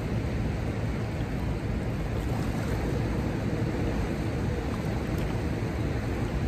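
Steady low rushing of river water flowing below a hydroelectric dam, unbroken throughout.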